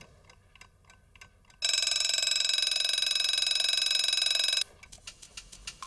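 Analog alarm clock going off at 8:00: its bell rings loudly for about three seconds, starting under two seconds in and cutting off abruptly. Faint clicks come before and after the ring.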